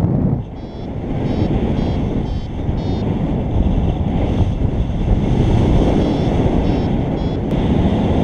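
Wind buffeting the microphone in flight under a paraglider: a loud, steady rumble. Faint groups of short high beeps come and go, in the pattern of a flight variometer signalling climb.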